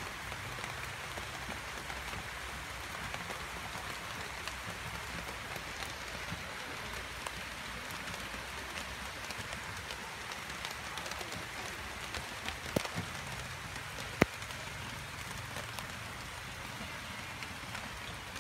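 Light rain falling steadily, an even hiss of fine drops. Two sharp clicks come about two-thirds of the way through.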